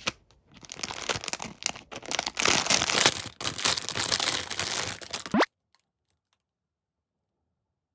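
Clear plastic bag crinkling and rustling in uneven bursts as a small plush doll is handled and pulled out of it. Just before the rustling ends there is a short rising squeak, then it cuts off suddenly to silence.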